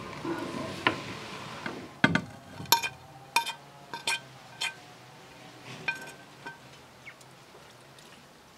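A metal spoon scraping ground fig-and-almond paste off a ceramic plate into a glass bowl, with a run of sharp clinks about every half second as spoon and plate knock against the bowl, then a few fainter clinks.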